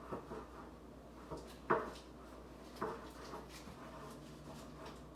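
A few light knocks and clatters of kitchen things being handled during baking, the sharpest about a third of the way in and again just past halfway, with a faint low hum near the end.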